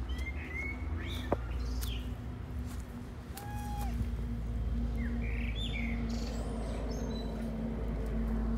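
Small birds chirping: short, scattered high calls, a few in the first two seconds and more around five seconds in, over a steady low hum and rumble.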